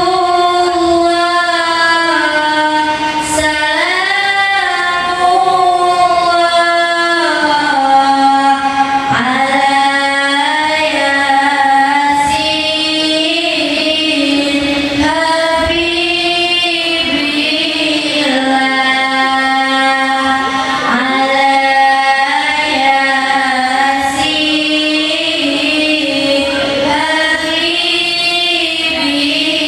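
A girl's voice singing sholawat, an Islamic devotional song in praise of the Prophet, through a microphone, in long held notes with sliding melodic ornaments. A single voice line is heard, with no instruments.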